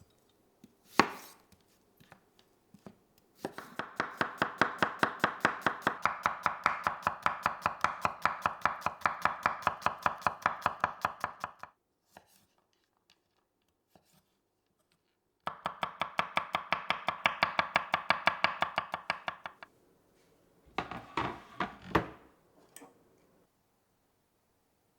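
A kitchen knife chopping food on a cutting board: two long runs of rapid, even strokes with a pause between them, then a short, uneven burst of cuts near the end.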